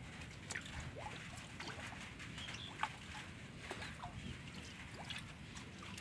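Birds chirping in short, scattered calls over a steady low rumble, with one sharp click a little under three seconds in.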